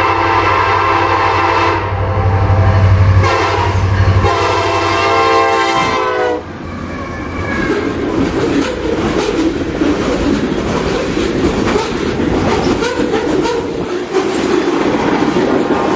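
Canadian National freight locomotive's multi-note air horn sounding twice: one blast ends about two seconds in, and a longer one follows, dropping in pitch as it ends. After it comes the steady rumble and clickety-clack of the fast manifest train's cars rolling past.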